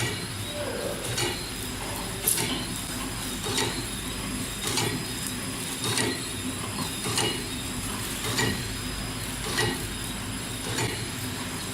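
Automatic putty extruding, cutting and packing machine running, a steady mechanical hum with a sharp clack about every 1.2 seconds as it cycles through each piece.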